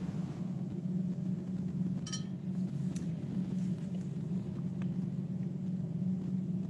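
Room tone from an open microphone: a steady low hum, with a few faint clicks about two and three seconds in.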